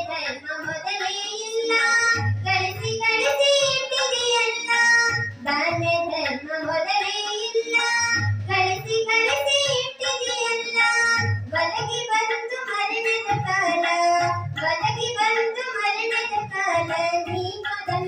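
Kannada tatvapada (devotional folk song) sung by a high voice to harmonium accompaniment, with tabla; the deep strokes of the bass drum recur every second or two under the melody.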